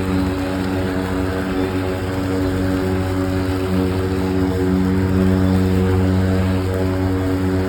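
Milwaukee battery-powered lawn mower running with a steady, even hum.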